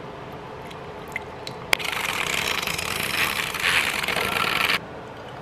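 Handheld battery-powered frother whisking matcha and water in a ceramic bowl: a steady whirr with frothing liquid that starts after a click about two seconds in and cuts off suddenly near the end.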